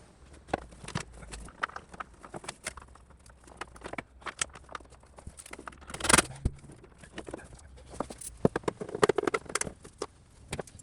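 Irregular clicks, clatters and knocks of parts and hand tools being handled while cooling hoses and pipes are fitted into a jet ski's engine bay, with one sharper clatter about six seconds in.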